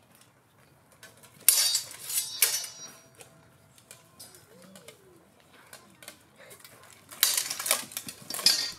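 Steel swords clashing against each other and against plate armour in armoured sparring: two quick flurries of metallic clangs, about a second and a half in and again about seven seconds in.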